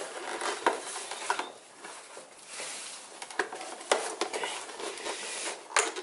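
Hard plastic pieces of a Ram truck's tow-mirror housing being handled and pressed together by hand: rubbing and scraping with several sharp plastic clicks and knocks as the cover is worked into place.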